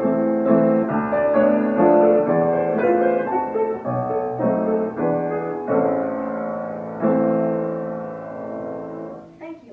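Upright piano playing the closing chords of a classical piece, ending on a final chord held for about two seconds as it fades, then damped off near the end.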